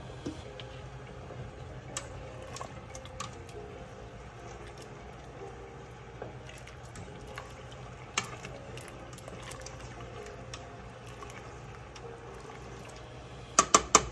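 Pot of water boiling with lasagna noodles in it, a steady bubbling hiss with a few light clicks of a utensil against the stainless steel pot. Near the end, a quick run of four sharp knocks: the utensil tapping against the pot.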